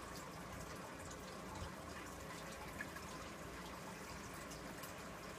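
Aquarium water trickling and bubbling steadily, with small drips, and a light tick near the middle.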